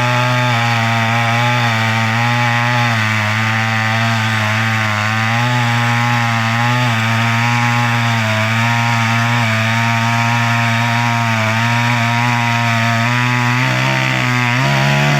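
Chainsaw running under load, cutting through a very thick log, its engine note steady with a slight waver. Near the end its pitch shifts.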